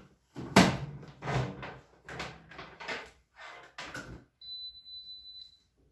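A stainless-steel bread machine's lid shuts with a sharp clack, followed by several smaller knocks and rattles as the machine and its cord are handled. Near the end, once the machine is plugged in, one steady high electronic beep sounds for about a second.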